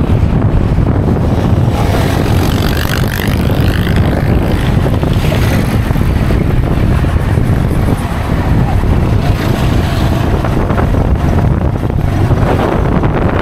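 Steady low rumble of a moving road vehicle, with wind buffeting the microphone.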